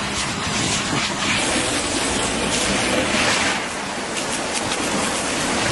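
Steady rushing noise of fire hoses spraying water onto a burning building, with short crackles in the middle.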